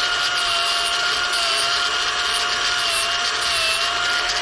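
Ridgid cordless angle grinder with a grinding pad running at full speed with a steady whine, dipping slightly in pitch twice near the end as it bears on the work. It is bevelling the flared, freshly cut end of a hydraulic hose.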